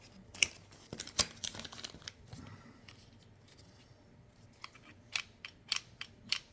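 A hard plastic holster and its plastic packaging being handled: scattered sharp plastic clicks and snaps with some crinkling, a few near the start and a quicker run of clicks in the second half.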